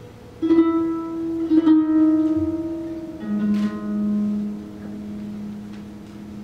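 Concert harps played in a slow duo: low notes plucked about half a second in, again a second later and again near halfway, each ringing on long and overlapping the next as it fades.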